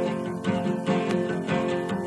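Acoustic guitar played live, a steady run of plucked notes and chords.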